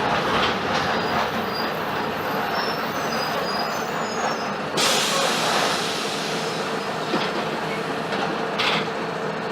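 Mercedes-Benz OF-1721 BlueTec 5 city bus on the move, its diesel engine and cabin rattles heard from on board. A sudden, louder hiss comes in about five seconds in and carries on.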